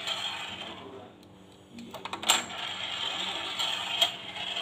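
Small plastic toy-set pieces being handled and fitted, with a rustling clatter and a few sharp clicks, the loudest about two seconds in.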